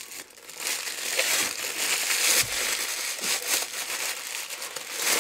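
White packaging crinkling and rustling as a new Stanley vacuum flask is unwrapped by hand. The crinkling is loudest through the middle of the stretch.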